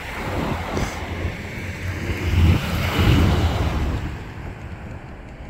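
Aircraft passing by: a rushing roar that builds to its loudest about two and a half seconds in, then fades away, with wind buffeting the microphone.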